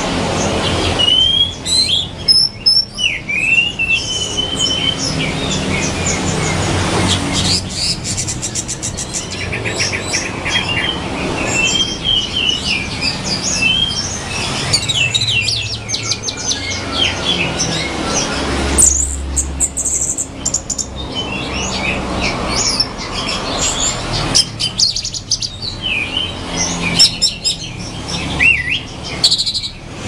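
Orange-headed thrush singing: a varied run of quick whistled phrases, slurred notes and rapid trills, over a steady low background noise.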